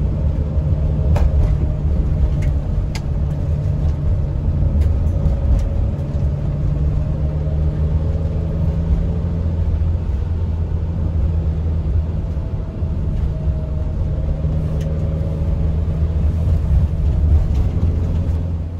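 Steady engine and road rumble of a car heard from inside the cabin while driving.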